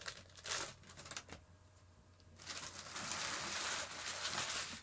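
Foil wrapper of a baseball card pack crinkling as it is handled and torn open: a few short crackles, a brief lull, then a steady crinkling rustle for the last two seconds or so.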